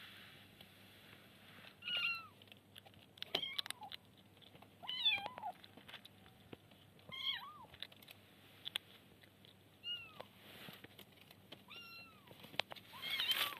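Kitten meowing: about seven short, high-pitched meows, one every second or two, as a hand grabs it by the scruff.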